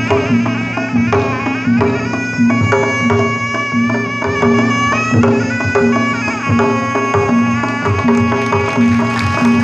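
Traditional Sundanese pencak silat accompaniment: hand drums keep a steady, driving beat under a reedy wind instrument playing a wavering, bending melody.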